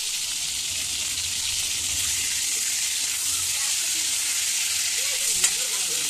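Prawns frying in hot refined oil in a metal kadai: a steady sizzle, with one sharp tap a little after five seconds in.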